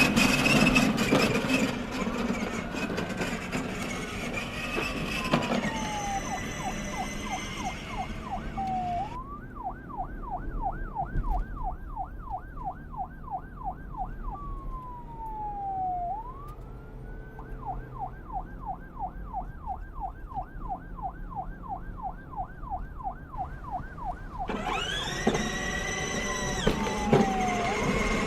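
Electronic police siren on a kids' ride-on police motorcycle, changing patterns: a fast yelp sweeping up and down about four times a second, broken by slow falling wails near the middle. It is fuller and louder at the start and again from a few seconds before the end.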